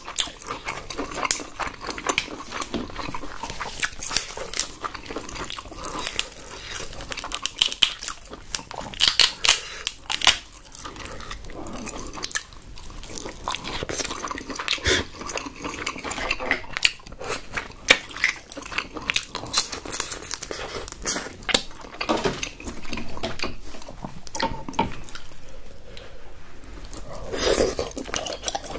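Close-miked eating sounds: wet chewing and smacking of king crab meat, with irregular clicks and crackles as the crab shell pieces are handled and the meat is picked out.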